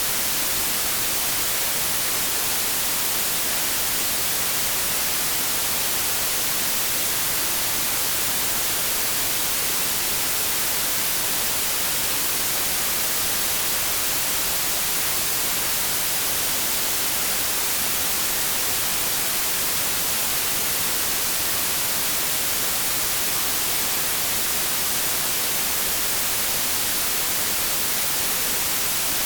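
Steady synthetic 'inverse' white noise: an unbroken, even hiss weighted toward the high end, bright and thin with little low rumble.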